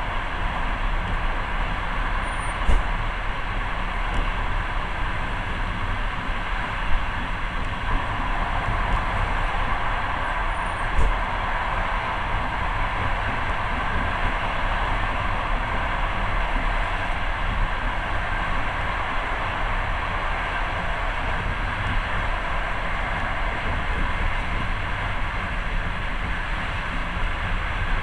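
Passenger train running steadily, heard from inside the carriage: a continuous noise of wheels on rails, with a few short sharp knocks in the first half.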